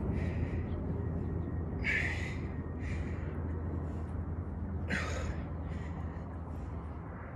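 A person breathing hard through repetitions of a weighted exercise: sharp breaths out and in, coming in pairs about every three seconds, over a steady low hum.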